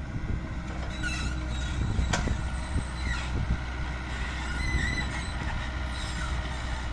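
Excavator's diesel engine running steadily, with intermittent high metallic squeals and a sharp clank about two seconds in.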